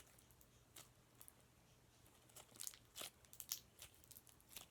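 Faint, irregular crackles and clicks of slime being squished and stretched in the hands.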